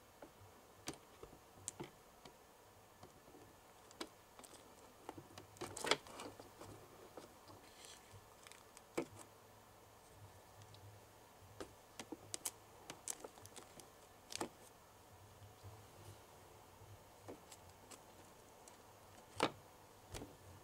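Faint, scattered clicks and taps of small plastic dishes and utensils being handled, irregularly spaced, with a short flurry about six seconds in.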